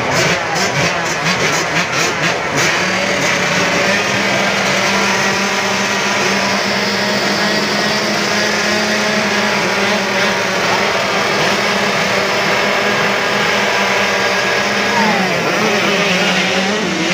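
Many 50cc two-stroke kids' motocross bikes running together at the start line, a dense, steady buzz of engines blipping and revving. Near the end the pitches sweep as the bikes launch off the line.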